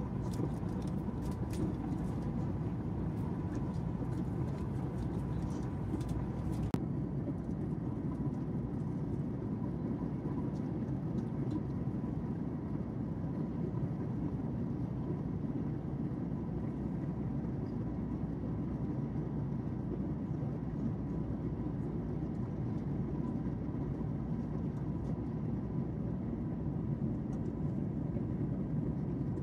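Steady cabin noise of a Boeing 737 MAX 8 in flight: a low rush of airflow and engine drone, with a faint steady hum, as heard from inside the cabin. There are a few faint clicks in the first several seconds.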